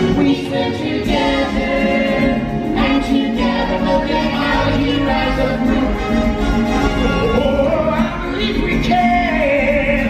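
Stage musical song: singers over an orchestral accompaniment, heard live in the theatre.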